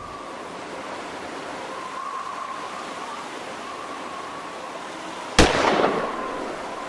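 Eerie trailer soundscape: a steady hiss with a faint wavering high drone, broken about five and a half seconds in by one sudden loud impact hit that rings off over about half a second.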